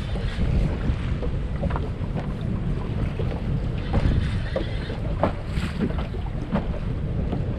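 Wind buffeting the microphone in a heavy, gusting rumble, with small waves lapping and slapping irregularly against the hull of a drifting fishing boat.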